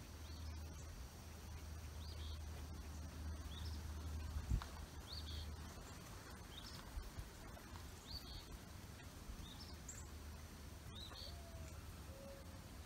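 A bird chirping over and over, short high calls about once a second, over a steady low rumble. One soft thump about four and a half seconds in, and a few lower short notes near the end.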